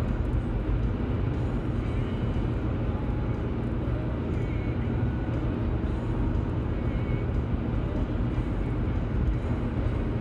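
Steady road and engine noise of a car cruising at highway speed, heard from inside the cabin: an even low rumble with no sudden events.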